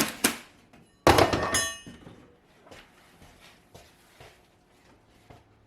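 Demolition impacts in a kitchen tear-out: two sharp knocks, then about a second in a loud crash with a metallic, clinking ring that dies away over most of a second, followed by a few faint knocks and rattles of debris.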